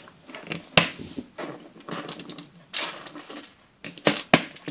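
Hard plastic toy parts clicking as black plastic wheel holders are pushed onto Playmobil pickup truck wheels, with softer handling rattle between the clicks. One sharp click comes about a second in and two more come close together near the end.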